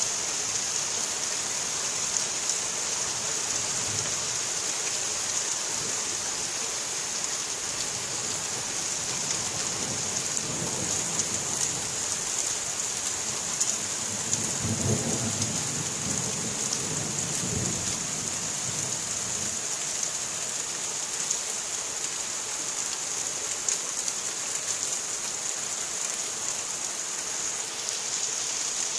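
Thunderstorm: steady rain hissing throughout, with a low roll of thunder that builds about a third of the way in, peaks around the middle and fades away.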